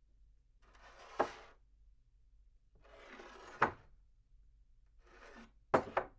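A cup slid across a tabletop three times, recorded from a medium distance. Each short scraping slide ends in a sharp knock as the cup stops; the last ends in two knocks close together.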